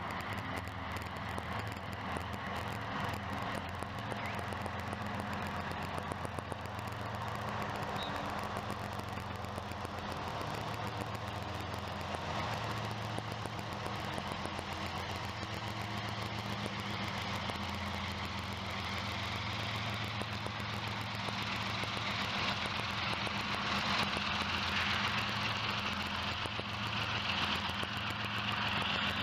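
Steady low machine hum under a hiss, the hiss growing somewhat louder in the last few seconds.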